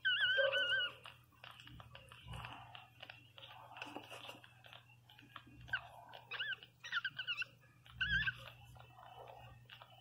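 Newborn Pinscher puppies crying with thin, wavering squeaks while they nurse, with wet suckling and mouthing sounds between the cries. The longest, loudest squeal comes right at the start, and a run of short squeaks follows about six to eight seconds in.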